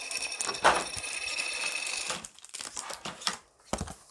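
A Pokémon collector's coin clattering and ringing on a tabletop with a rapid rattle, settling about two seconds in, followed by a few light clicks of plastic packaging being handled.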